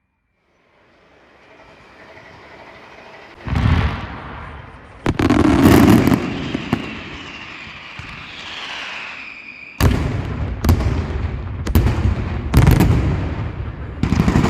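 Fireworks going off: a string of about seven sharp bangs from bursting shells, with a whistle falling in pitch just before the bang about ten seconds in.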